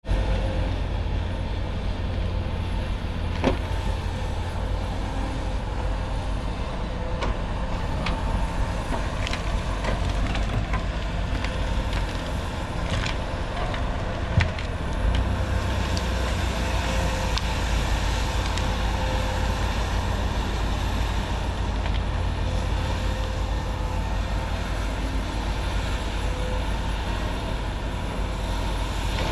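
Cat 568 shovel logger's diesel engine running steadily under work, with a few sharp knocks along the way, the loudest about 14 seconds in.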